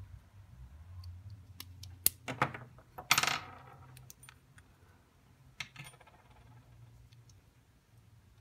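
Small clicks of a thin metal pick or flathead working on a watch case, with sharp metallic clinks about two seconds in. The loudest sound is a small metal object clinking onto a hard surface about three seconds in, ringing briefly.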